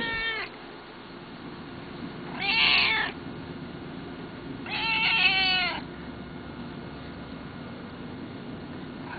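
Domestic cat meowing: two meows about two seconds apart, the second longer, each bending down in pitch at the end. The tail of one meow is heard at the start.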